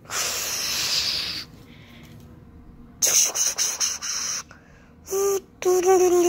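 A child's voice making spaceship sound effects with the mouth: a long breathy whoosh, a run of short hissing spits about three seconds in, then two steady buzzing hums near the end.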